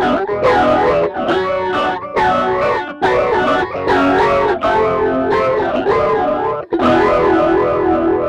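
Electric guitar strumming chords through a pedalboard chain of a J. Rockett Archer overdrive and a phaser, the phaser's sweep moving up and down through each chord. The last chord is held and rings on.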